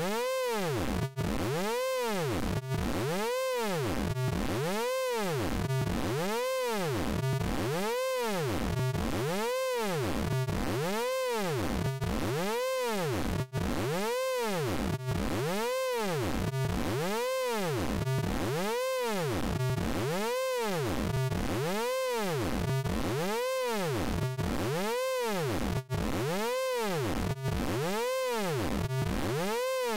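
Synthesized vocoder sound from the Orange Vocoder plugin: a steady pitched tone with many overtones, its pitch swinging up and down in a cycle that repeats evenly about every one and a half seconds.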